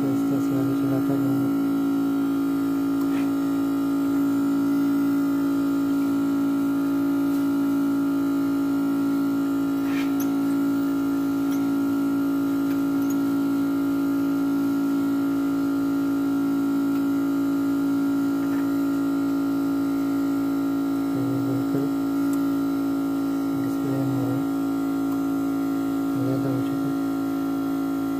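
Background instrumental music: a sustained synthesizer drone with a soft pulse about once a second, and a few plucked notes near the end.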